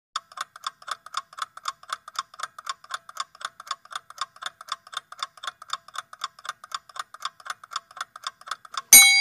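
Clock-ticking sound effect for a quiz countdown timer, a fast even tick-tock of about five ticks a second. Near the end a loud bell strikes and rings on, signalling that the time is up.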